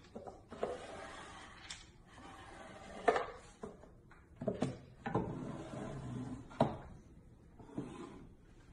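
Wooden drawers sliding in and out of a wooden desk: wood rubbing on wood, with several sharp knocks as the drawers bump shut.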